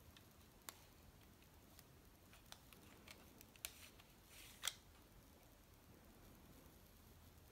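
Faint plastic clicks and rattles of a Lego-brick M1911 model pistol being handled. The magazine is pulled out, with a short sliding sound and then the sharpest click about four and a half seconds in.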